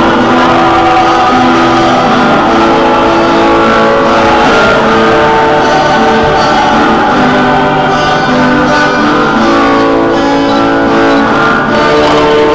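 Music with singing voices and guitar, the notes held and changing every second or so.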